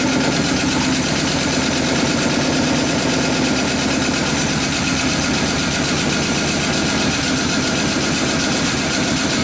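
Honda 5.5 hp single-cylinder four-stroke engine running steadily on an HHO, rubbing-alcohol and compressed-air feed.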